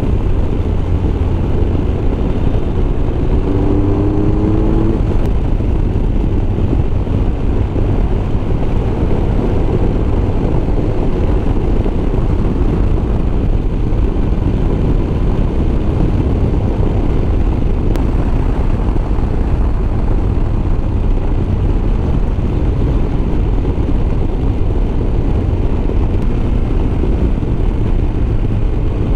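Motorcycle riding along at speed: steady engine and road noise under heavy wind rush on the bike-mounted camera's microphone.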